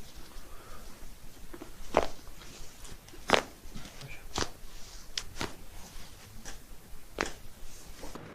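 Joints cracking during a chiropractic spinal adjustment: about six short sharp pops spread over several seconds, the loudest a little over three seconds in.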